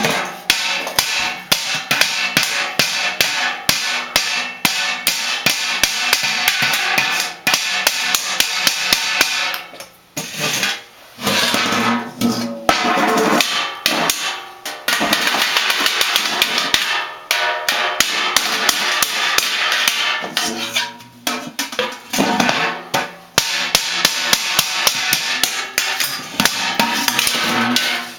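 Children banging objects hard and fast, a dense clatter of strikes that goes on almost without a break and stops briefly a few times.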